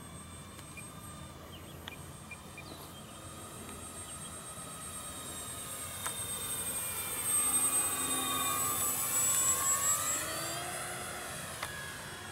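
Twin electric motors and propellers of a radio-controlled P-38L Lightning model whining as it flies past. The whine grows louder, is loudest about seven to ten seconds in, shifts in pitch as the plane passes, then fades.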